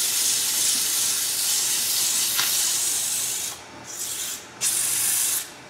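Sandpaper held against a spinning wooden workpiece on a woodturning lathe: a steady hiss of sanding that drops away about three and a half seconds in, comes back for about a second, and stops just before the end.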